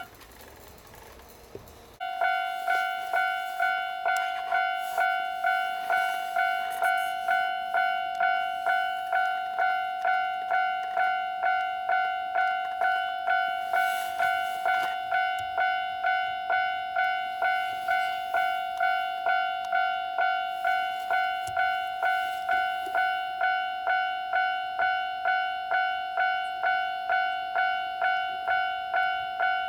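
Japanese railway level-crossing warning bell: a single ringing tone struck over and over in an even rhythm, about one and a half strikes a second, each ring fading before the next. After a brief pause it starts about two seconds in, signalling an approaching train.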